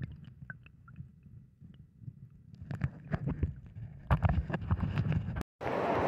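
River water heard through a phone's microphone sealed in a waterproof case and held underwater: muffled gurgling and sloshing with scattered knocks, growing into heavier bursts about halfway through. Just before the end it breaks off and a steady rush of river water in open air takes over.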